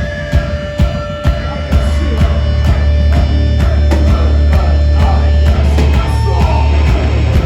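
Heavy metal band playing live: drum hits about two a second over a held guitar note, then about two seconds in the full band crashes in with a loud, sustained wall of distorted guitar and bass under the drums.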